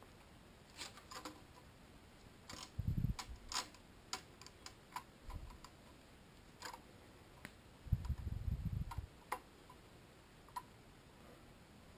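Light scattered clicks and taps of a metal head gasket being fitted over the cylinder studs onto a Kawasaki ZX-10R engine block, with a couple of dull low thumps from handling, about three seconds in and around eight to nine seconds.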